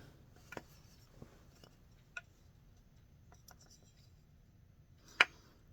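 A few faint, scattered clicks and taps, with one sharper click about five seconds in.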